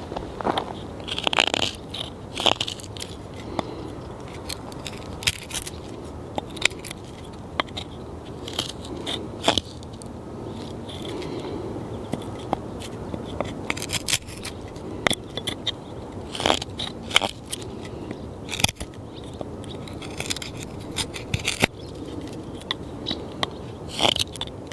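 Small handmade carbon-steel bushcraft knife shaving curls off a peeled wooden stick: irregular crisp scraping cuts, often one or two a second.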